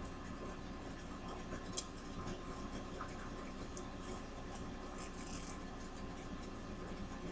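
Small handling noises from working a strip of plastic rhinestone diamond wrap ribbon by hand: one sharp click about two seconds in, and a brief crinkling rustle about five seconds in, over a steady faint hiss.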